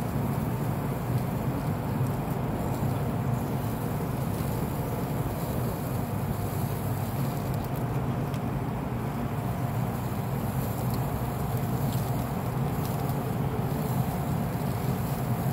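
Pellet grill's fan running with a steady low hum, with a few faint clicks of handling at the grill.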